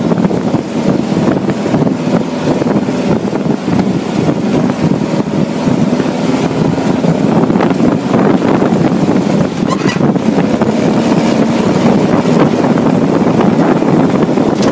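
Open roll-caged off-road buggy driving fast over a dirt road: its engine runs steadily under heavy wind noise on the microphone, with frequent knocks and rattles from the rough ground.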